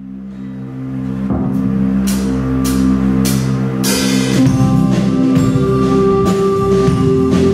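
Live band's instrumental song intro: sustained keyboard chords swell up from silence, cymbals are struck several times, and about four seconds in the bass and drums come in.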